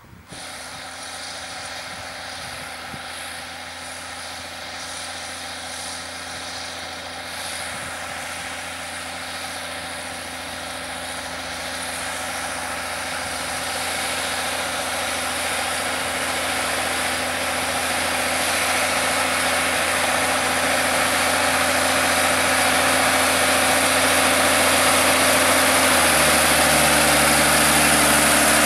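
John Deere 3650 tractor's six-cylinder diesel engine running steadily under heavy load while pulling a cultivator through clay soil, growing gradually louder as the tractor comes closer. Near the end the low drone changes pitch.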